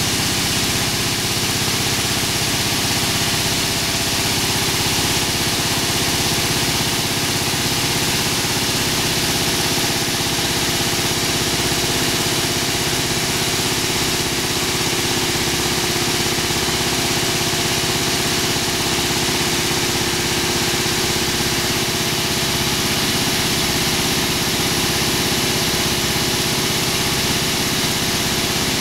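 Maize polisher running steadily while it processes maize, a constant, unchanging machine drone.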